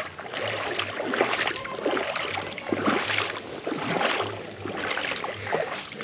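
Shallow stream water splashing and sloshing irregularly.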